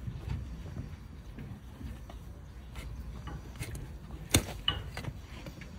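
Long-handled spade-bladed hoof knife working into a donkey's overgrown hoof horn: low scraping and a few knocks, with one sharp crack a little over four seconds in.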